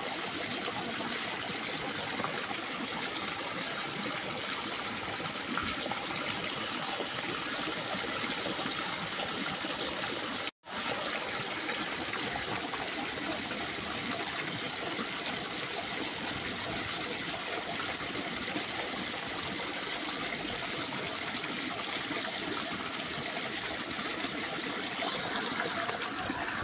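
Steady running or trickling water, cut off for an instant about ten seconds in.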